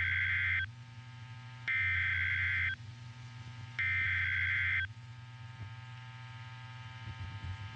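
Emergency Alert System SAME header tones: three buzzy bursts of digital data, each about a second long and about a second apart. They are the coded header that opens a broadcast emergency alert, here a tornado warning, over a steady low hum.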